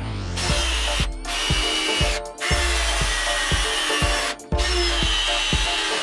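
A power tool running in spells, cutting out briefly three times, over background music with a steady beat.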